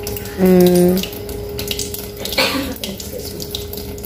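Water running from a LeveLuk Kangen water ionizer's outlet hose into a steel sink, over a steady hum. About half a second in, the machine gives a low electronic beep lasting about half a second.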